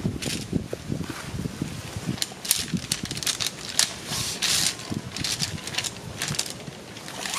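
A bundle of aluminium-alloy tent poles being pushed into a fabric pole bag: fabric rustling and scraping in repeated rushes, with light knocks and clacks as the poles shift against each other.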